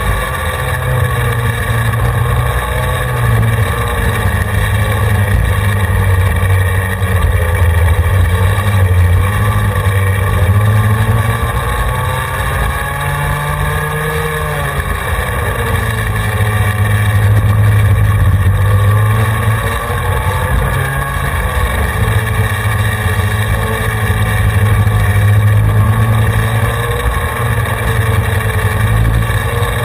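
Racing kart engine heard onboard at speed, its pitch rising along the straights and dropping as it slows for corners, several times over.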